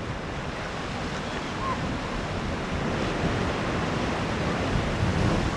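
Sea waves washing onto the shore of a small cove in a steady wash, with some wind on the microphone.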